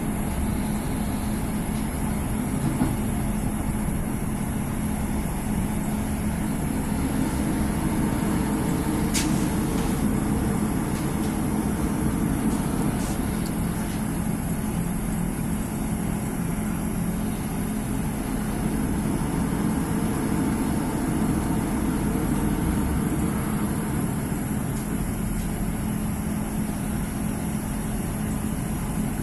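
Class 150 Sprinter diesel multiple unit heard from inside the carriage while under way: the steady hum of its underfloor diesel engines and rumble of the wheels on the rails. There is one sharp click about nine seconds in.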